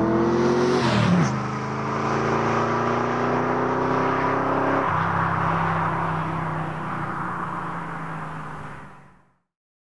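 Ford Mustang engine through a Flowmaster Outlaw dumped exhaust. It revs up, drops back sharply about a second in, then runs steadily. The tone settles lower about five seconds in, and the sound fades out near the end.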